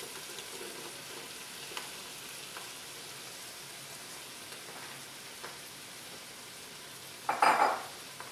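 A pound of freshly added quartered mushrooms sizzling in hot oil in a pot on a gas burner: a steady frying hiss with a few small pops. A short, louder noise comes near the end.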